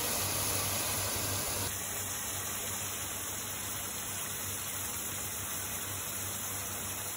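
Masala of onion and tomato frying in a steel karahi with a steady sizzling hiss. A little under two seconds in it turns into a quieter simmer of boiled chickpeas cooking in the masala.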